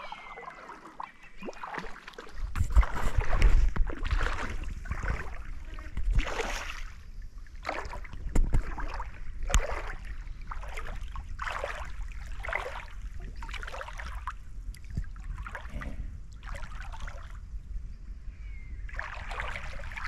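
Water sloshing and splashing in a shallow creek in a string of uneven bursts, with wind rumbling on the microphone from about two seconds in.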